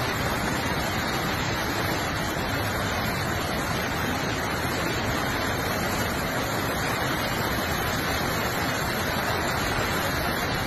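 Floodwater rushing in a fast torrent down a street, a steady loud rush of water without a break.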